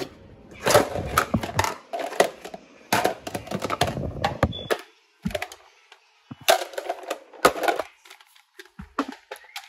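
Kitchen bowls being handled: an irregular run of knocks and clinks as dishes are shifted and picked out, with short pauses between.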